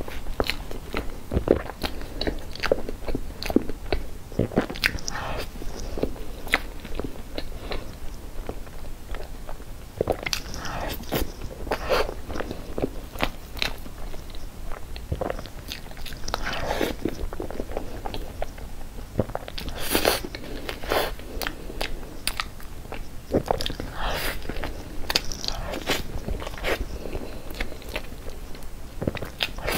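Close-up mouth sounds of eating cream cake: chewing and lip smacks as a dense run of short, wet clicks, louder in clusters.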